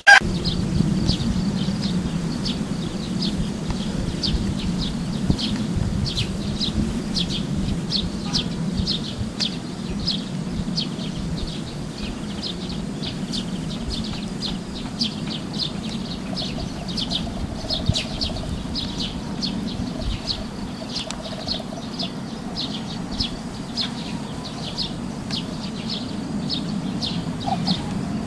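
Country ambience: short high-pitched chirps repeating steadily about twice a second, over a low steady rumble.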